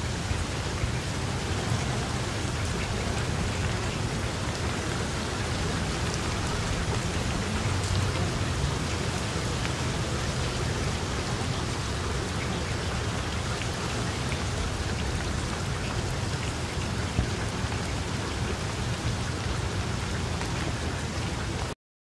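Steady rain falling, played as a rain ambience track; it cuts off suddenly near the end.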